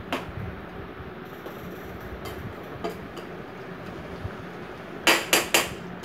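A ladle stirring chicken curry in a stainless steel pan, clinking lightly against the pan now and then, then three sharp clinks in quick succession about five seconds in.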